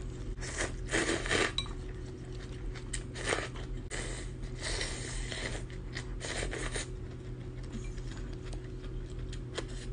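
Cold wheat noodles being slurped in several short bursts, with chopsticks clicking a few times against a glass bowl and chewing in between.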